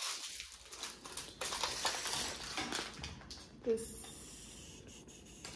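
Loose metal furniture hardware, hinges and small fittings, clicking and clinking against each other and a stone countertop as it is sorted, with plastic parts bags crinkling; one short, sharper sound about two-thirds of the way through, then quieter handling.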